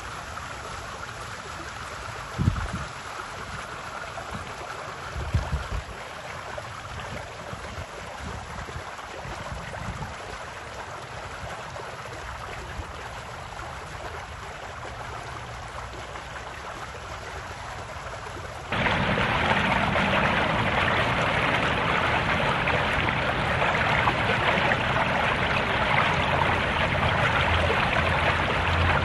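Steady wash of moving swimming-pool water, with a couple of brief low thumps in the first few seconds. About two-thirds of the way through it turns abruptly louder and fuller: continuous splashing and trickling water.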